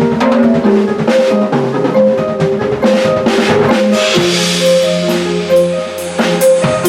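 Drum kit being played in a busy groove, bass drum and snare with rimshots and cymbals, over held pitched notes that change every half second or so; a cymbal wash swells about four seconds in.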